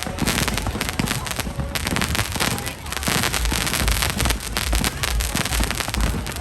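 Fireworks going off in rapid succession: a dense crackle of bangs, with heavier low booms from about halfway on.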